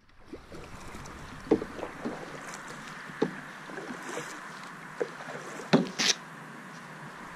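Canoe being paddled on calm water: irregular splashes and sharp knocks from the paddle strokes over a steady hiss, the loudest about a second and a half in and again near six seconds in.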